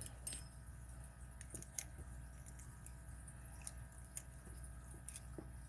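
Faint, scattered metal clicks and ticks from a homemade pick and tension tool working inside an old five-lever lock, over a steady low hum.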